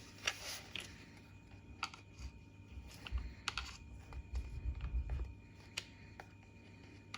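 Sparse, irregular light clicks and taps of a screwdriver and small plastic parts as wiring is pushed into place, with a few dull handling bumps in the middle.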